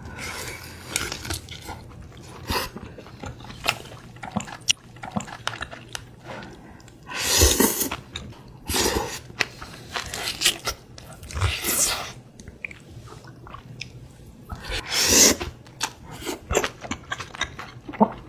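Close-up eating sounds: a person chewing and crunching food with many small crisp clicks. Two louder, longer noisy bursts come about a third of the way in and again near the end.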